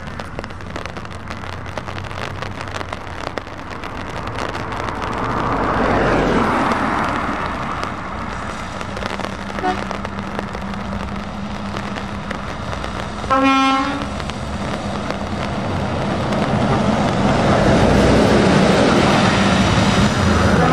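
Heavy lorries and a large motorhome passing one after another on a wet road: engines running and tyres hissing on the wet surface, swelling as each vehicle goes by. A vehicle horn toots briefly about two-thirds of the way through, and another starts near the end.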